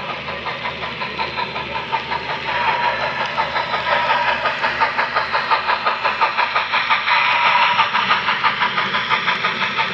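Steam locomotive exhaust chuffing in a quick, steady rhythm, growing louder as the locomotive draws level, loudest a little before the end.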